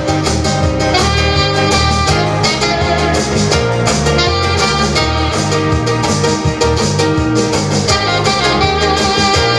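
Instrumental background music with a steady beat, brass or saxophone lines over guitar and bass, in a jazzy style.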